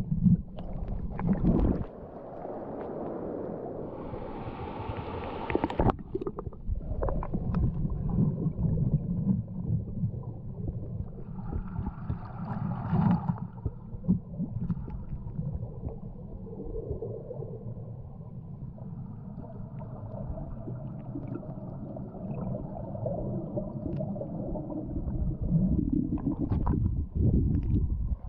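Muffled rumbling and gurgling of river water, as picked up by a camera held underwater in its waterproof housing, with scattered bumps and knocks.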